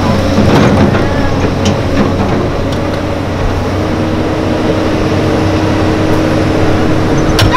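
JCB 3CX backhoe loader's diesel engine running steadily while its backhoe arm is raised, with a low engine hum. A higher steady tone joins about four seconds in, and a few short knocks come through.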